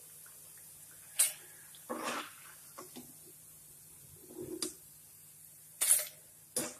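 A steel perforated skimmer clinking and scraping against the frying pan and a steel bowl as fried onion pakodas are lifted out of the oil and tipped in: three sharp clinks and a few duller knocks. The hot oil sizzles faintly underneath.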